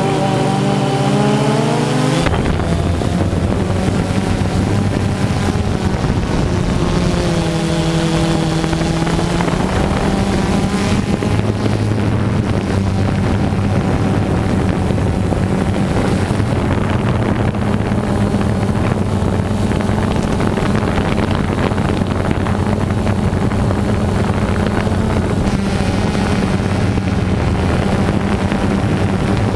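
FPV quadcopter's motors and propellers heard through its onboard camera: a steady motor hum over rushing air, with a brief shift in pitch as the throttle changes. A different pitched sound cuts off abruptly about two seconds in.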